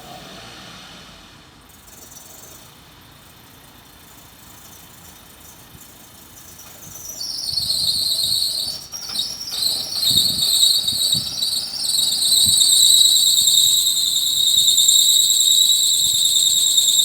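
A high-pitched squeal from a Suzuki Splash, the strange noise the owner is recording. It starts about seven seconds in, wavers at first and then holds steady.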